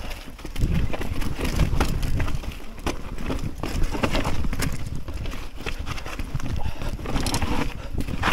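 Mountain bike clattering down a rocky trail: irregular sharp knocks and rattles from stones under the tyres and the frame shaking, over a steady low rumble.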